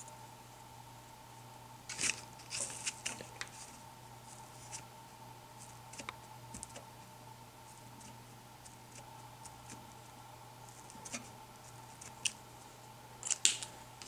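Short scratchy strokes of a felt-tip marker on paper and small handling clicks, in a cluster about two seconds in and again near the end, over a faint steady hum.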